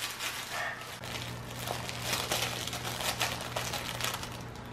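Crinkle-film plastic inside a handmade fabric cat toy crinkling in quick, irregular rustles as cats bite and kick at it, over a low steady hum.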